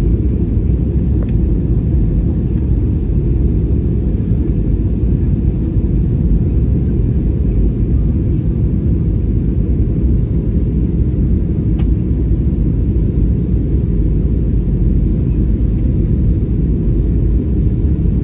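Steady low rumble of an airliner's cabin noise in flight, heard from a window seat. A single faint click comes about twelve seconds in.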